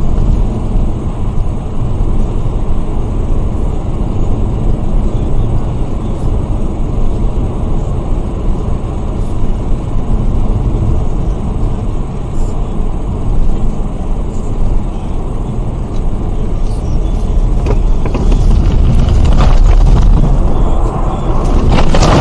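Car driving on a snowy road, recorded by its dash cam inside the cabin: a steady low rumble of tyres and engine. From about eighteen seconds in the rumble gets louder and is broken by a run of sharp knocks and rattles as the car leaves the road into the snow.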